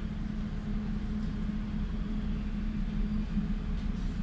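Steady hum of a DT1 U-Bahn car standing at a station, heard inside the car, with a constant low tone.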